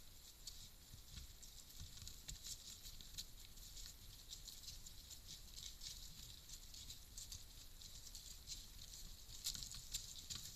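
Faint, irregular patter of small ticks and rustles on the ground, like an animal's footsteps through dry forest litter, a little denser near the end.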